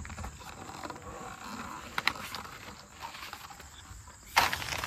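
Faint rustling and shuffling, a sharp click about two seconds in, then a sudden louder rustle of tent fabric near the end.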